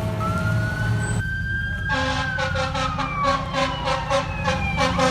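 Fire truck sirens and horn. A steady air horn blast cuts off about a second in, while a wailing siren rises, holds, and then slowly falls. From about two seconds in, a second siren pulses rapidly at about four beats a second.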